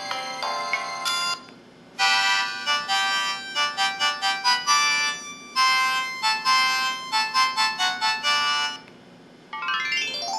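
Built-in ringtone melodies of an MS100 mobile phone playing through its speaker. One electronic tune ends about a second in. After a short pause a busier tune of quick notes plays for about seven seconds. A third tune starts near the end with a quick rising run of notes.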